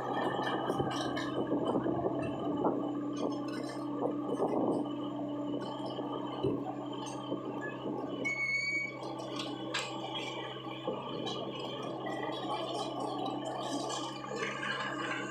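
Komatsu PC75UU compact excavator working in mud. Its diesel engine runs with a steady hum, and a higher steady whine fades out about five seconds in. Scattered knocks and clicks continue throughout, with a brief high squeal about eight seconds in.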